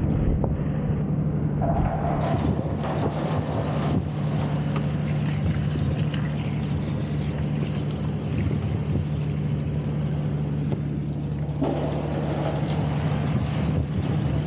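Engine of an opal-dirt agitator running steadily with a constant low hum, joined by a gritty rattling and grinding of stones from about two seconds in until near the end.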